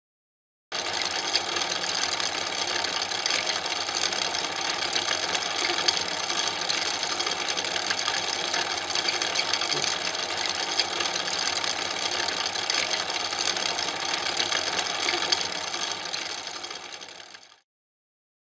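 8mm cine projector running: a steady mechanical clatter with hiss. It starts abruptly about a second in and fades out near the end.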